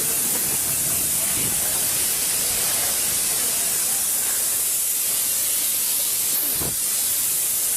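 Gas escaping from a leak with a steady, loud hiss that does not let up. There is a brief dull thud near the end.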